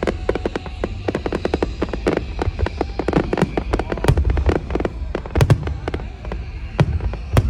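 Aerial fireworks: a dense, rapid crackling from crackle stars, with several heavier booms of bursting shells in the second half.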